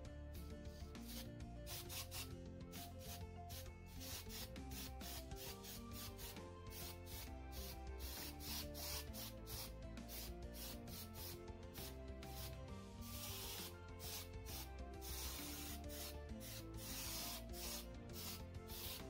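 Background music with held notes and a brisk, scratchy percussion beat.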